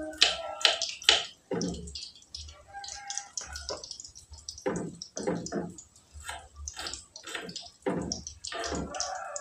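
A kitchen knife cutting on a wooden board, an uneven run of short taps and knocks as it slices through small pieces.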